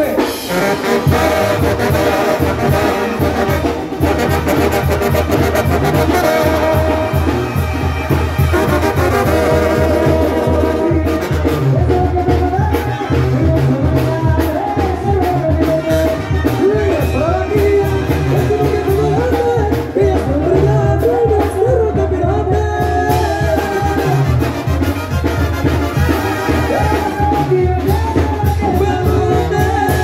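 Live Sinaloan banda music, with a trombone section and trumpets playing the melody over a steady pulsing tuba-and-drum beat.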